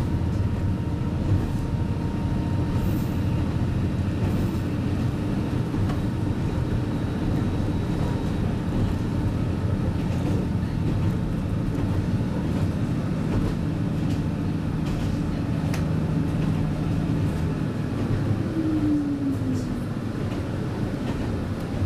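Interior of a diesel local train running on the line: a steady engine drone and rail rumble. About nineteen seconds in, one engine tone falls in pitch.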